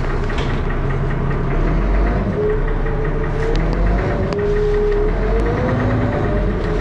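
Dennis Arrow double-decker bus's diesel engine running with a heavy, thrashy drone and a regular knock, the loud knocking noise the bus is known for; a whine slowly rises and falls in pitch over it.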